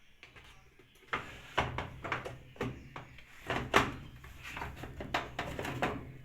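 A run of knocks and rattles, like a drawer or door being opened and handled, over a steady low hum.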